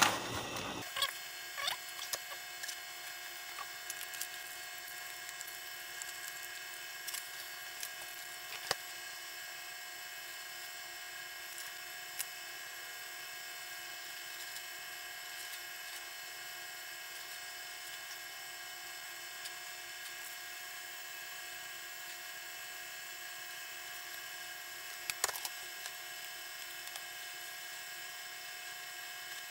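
A steady high-pitched electrical whine, with a few light clicks and taps in the first few seconds and again about 25 seconds in.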